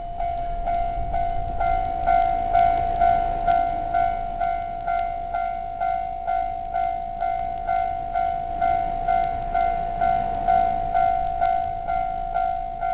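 Japanese level-crossing warning bell ringing steadily, a single-pitched ding repeating about twice a second, over a low rumble that is strongest in the first two seconds.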